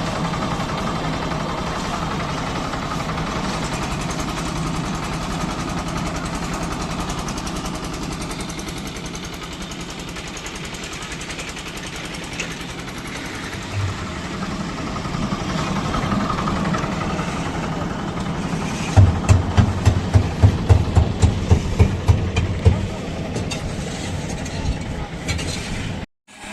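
An engine running steadily. Near the end comes a fast, even run of loud knocks, about three or four a second for some four seconds.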